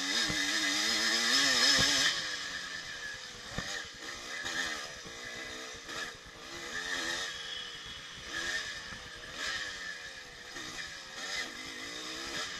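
1984 Yamaha IT200's two-stroke single-cylinder engine under way on a dirt trail. It is held at high revs for about the first two seconds, then the throttle is blipped up and down repeatedly through the rest.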